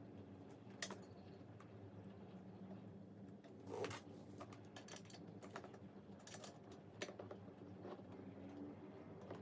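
Scattered light clicks and taps, about seven of them, the loudest about four seconds in, as small hardware is handled, over a steady low hum.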